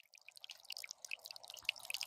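Water trickling and dripping over the rim of a small concrete waterfall fountain: a faint, quick patter of small splashes and plinks over a soft rush.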